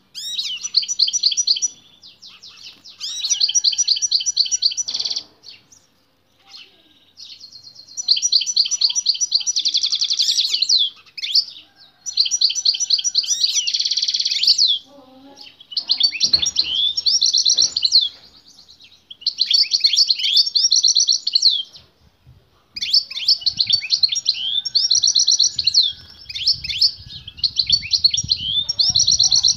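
Caged male European goldfinch singing hard, rapid twittering and trilled phrases of one to three seconds each with short breaks between them; by the title's account it is singing in answer to a female singing beside it.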